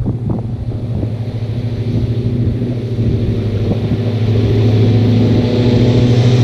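Tractor engine running steadily, growing louder about three to four seconds in and then holding.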